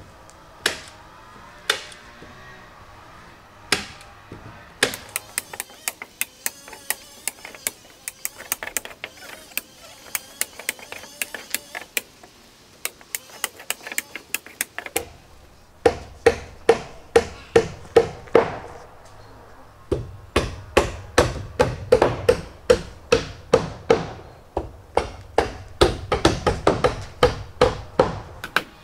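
Hammers driving nails into wooden roof battens. A few separate knocks and lighter, quicker tapping give way about halfway through to steady loud blows, about two a second, each with a short metallic ring.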